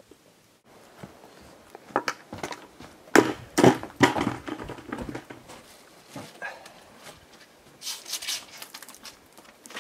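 Knocks, thuds and rustling on wooden porch boards as a bag is set down and handled, then crinkling from a plastic bottle being twisted open about eight seconds in.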